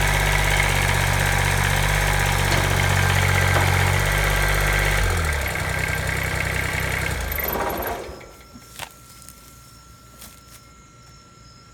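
Kubota BX22 tractor's three-cylinder diesel engine running steadily just after starting, its pitch shifting slightly about five seconds in, then shut off about eight seconds in. A few faint clicks follow.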